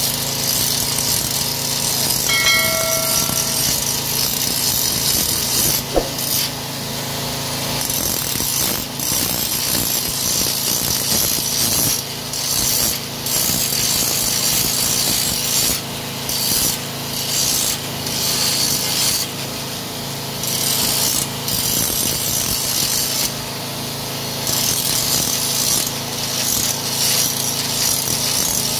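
Electric angle grinder running with an abrasive disc, grinding the steel blades of a push reel mower's cutting cylinder to sharpen them. A steady motor hum runs under a harsh grinding hiss that breaks off briefly every few seconds as the disc comes off the blade.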